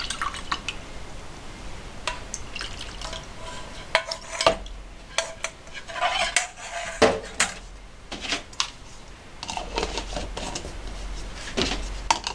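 A plastic ladle knocking and scraping against a bowl and plastic soup mugs as cold soup is ladled in, with scattered clinks and clicks and a little pouring.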